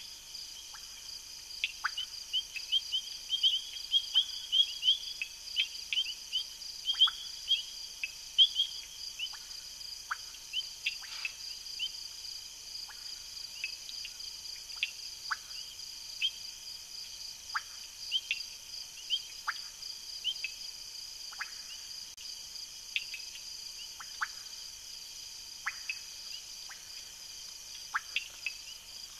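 Night chorus of insects trilling steadily and high, with frogs giving many short, sharp, downward-sweeping calls. The calls come thickest in the first nine seconds or so, then more sparsely.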